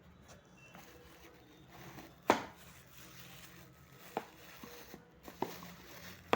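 Hands handling multivitamin packaging, with four sharp taps or knocks, the loudest about two seconds in and the rest spaced a second or so apart near the end.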